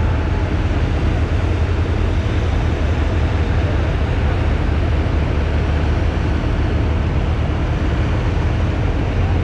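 3.6 diesel 4x4 pulling truck's engine running steadily at low speed, a loud even low drone with no revving.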